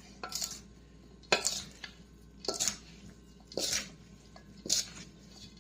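A spoon stirring a large batch of thick potato salad in a bowl, scraping and knocking against the bowl in five strokes, about one a second.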